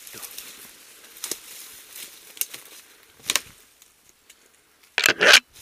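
Footsteps crunching on dry leaf litter and twigs, one step about every second, with two louder crunches close together near the end.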